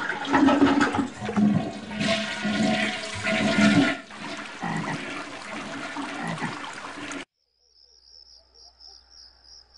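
Toilet flushing: a loud rush of swirling water that runs for about seven seconds and cuts off suddenly. After it, faint high-pitched insect chirping.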